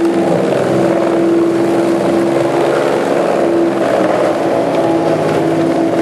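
Large industrial wood chipper running under load: a steady, loud machine drone with a held hum tone over the rough noisy rush of wood being shredded and chips thrown out.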